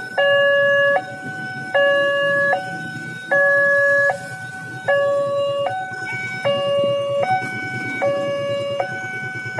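Railway level-crossing warning alarm sounding as the barrier is down: an electronic two-note chime that alternates steadily between a lower and a higher note, each held about three quarters of a second. It signals that a train is approaching.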